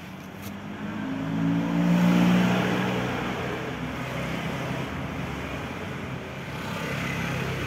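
A motor vehicle's engine rises in loudness, is loudest about two seconds in and then fades, over a steady mechanical hum.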